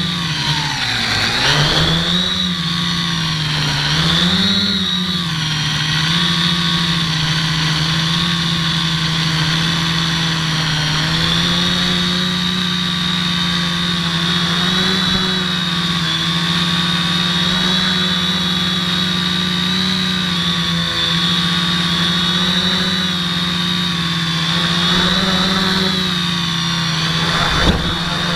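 Dead Cat quadcopter's electric motors and propellers whining in flight. The pitch dips and swings with the throttle in the first few seconds, then holds steady. A brief sharp knock comes near the end as the quad touches down in the grass.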